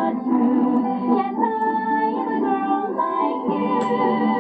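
A song: a female voice singing over instrumental accompaniment, from an animated film soundtrack.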